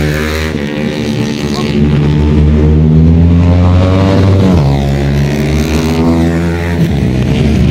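Motorcycle engine revving hard under acceleration, its pitch climbing and then dropping sharply at a gear change about four and a half seconds in, then climbing again.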